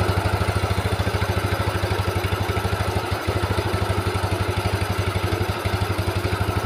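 Automatic scooter's small single-cylinder engine idling steadily with an even, quick pulse, dipping briefly about three seconds in.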